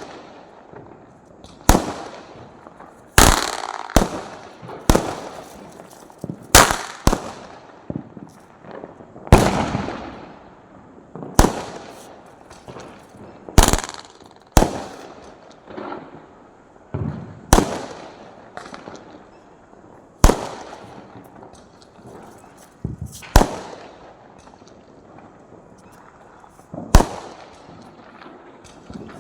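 Firecrackers bursting one after another: some twenty sharp bangs at irregular gaps of one to two seconds, each trailing off in a short echo.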